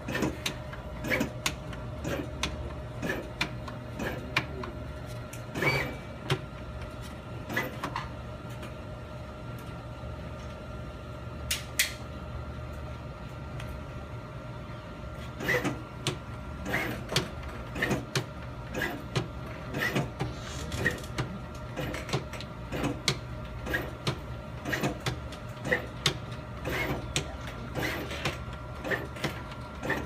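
Automated switch-test rig's actuator probe pressing the buttons of a car climate control panel, making a run of short sharp clicks over a steady machine hum. The clicks thin out to a few for several seconds in the middle, then come about one or two a second.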